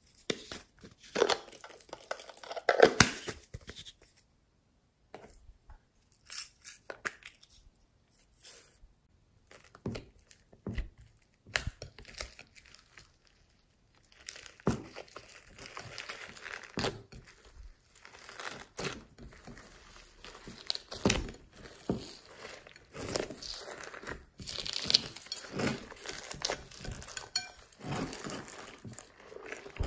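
Small plastic containers handled and opened, foam pieces and beads tipped onto glossy slime, giving scattered sharp clicks and taps. From about halfway, hands knead and fold the slime with its foam and bead mix-ins in a dense crackling and squishing.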